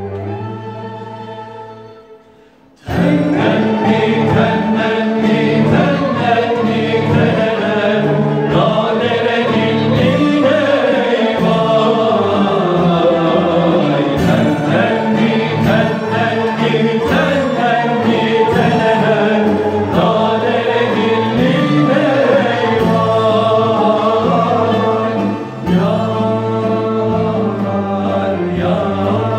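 Turkish art music ensemble, a mixed chorus of men's and women's voices with oud and cello, performing a kâr in makam Nihavend. A held note fades over the first few seconds, then the full chorus and instruments come in abruptly about three seconds in and sing on without a break.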